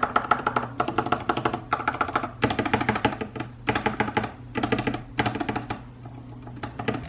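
Typing on a Lofree 1% transparent mechanical keyboard with factory-lubed Kailh Jellyfish linear switches: keystrokes come in about six quick bunches, with lighter clicking near the end. Background music plays underneath.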